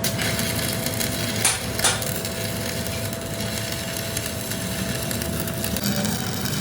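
Steady crackling metalworking noise in a workshop, with a faint steady hum that stops near the end and two sharp clicks about a second and a half and two seconds in.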